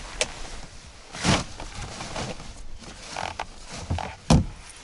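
Gear being handled in a small motorboat's storage compartment: a few knocks and scrapes, with the loudest clunk near the end.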